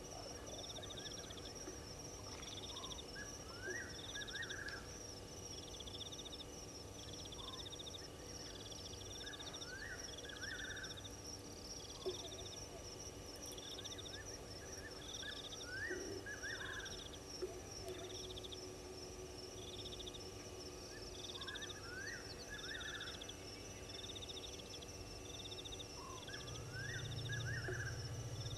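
Night insect chorus, led by crickets: a steady high trilling, a pulsed chirp repeating about once a second, and a lower rising call every few seconds. A low hum comes in near the end.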